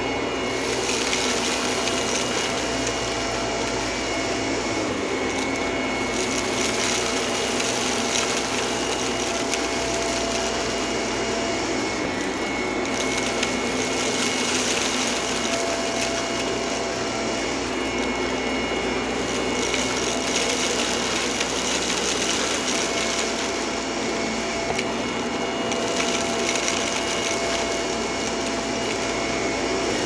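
Shark upright vacuum cleaner running steadily as it is pushed back and forth over carpet, sucking up scattered small debris. Its hiss swells and eases every few seconds with the strokes, with a few small clicks of debris going up the nozzle.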